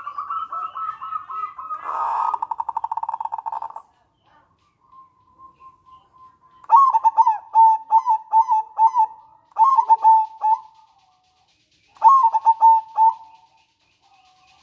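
Zebra dove (local perkutut) calling. A run of quick notes leads into a fast rattling trill over the first four seconds. After a pause come two phrases of short, rapid coo notes, the second after a short gap.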